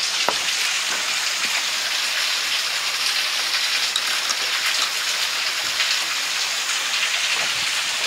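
Small mountain waterfall pouring onto rocks: a steady rushing hiss of falling water.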